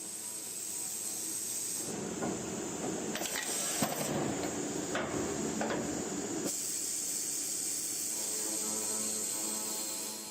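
HY 150NC CNC circular metal sawing machine running with a steady hum and hiss; about two seconds in, a louder, rougher mechanical noise with a few sharp clicks sets in for about four seconds, then stops.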